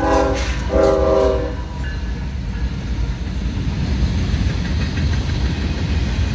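CSX freight locomotive's air horn sounding a chord in two blasts, the first cutting off about half a second in and the second running from just under a second to about a second and a half in. After that, the steady rumble of the freight cars rolling past.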